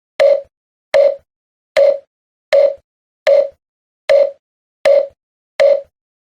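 A short pitched tone repeated eight times at an even pace, a little faster than one a second, each starting sharply and fading quickly, with dead silence between: an edited-in sound effect.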